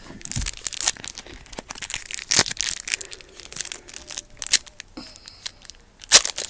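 Trading-card pack wrapper crinkling and tearing, with cards being handled in an irregular run of rustles.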